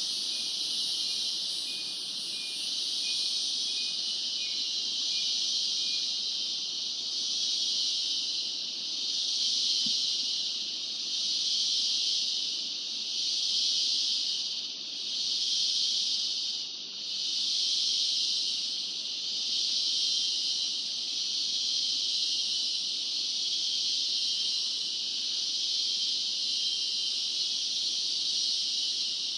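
Rainforest insect chorus: a dense, high-pitched buzzing that swells and fades about every two seconds. A faint run of quick, short repeated notes sounds under it during the first few seconds.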